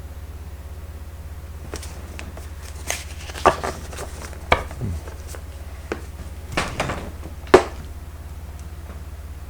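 Tarot card decks being handled and set down on a table: a scattering of taps, knocks and short card rustles, the sharpest knock about three quarters of the way through, over a steady low hum.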